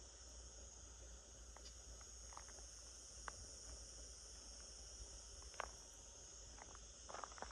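Faint, steady high-pitched chirring of crickets, with a few soft footstep ticks here and there and a quicker run of footsteps near the end.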